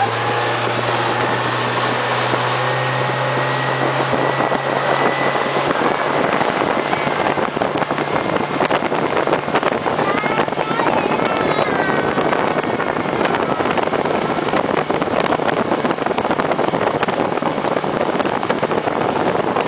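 Speedboat under way: a steady engine hum under the rush of water and wind buffeting the microphone. After several seconds the rushing noise takes over and the hum fades into it.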